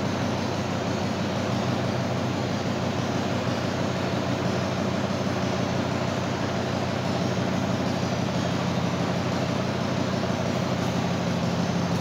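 Steady mechanical hum over an even hiss, with no change in pitch or level.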